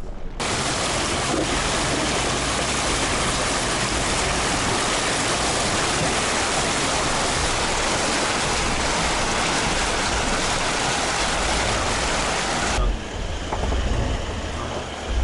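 River water surging and splashing against the side of a car as it fords a muddy mountain river, a loud steady rush heard right beside the door. About thirteen seconds in, the splashing stops as the car reaches the stony bank, leaving the engine running and a few low thumps.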